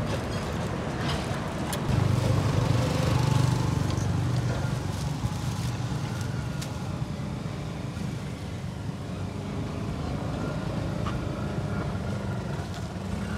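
Road traffic passing: a steady low engine hum from passing vehicles, swelling louder as one goes by about two seconds in, then settling back.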